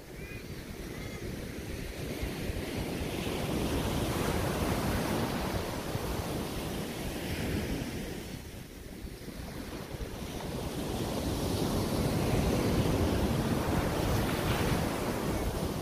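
Ocean surf breaking on a sandy beach, building and fading in two long surges with a lull about halfway through. Wind buffets the microphone underneath.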